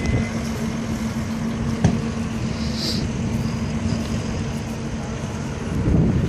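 Vehicle engine idling steadily with a low rumble, and a single sharp knock about two seconds in.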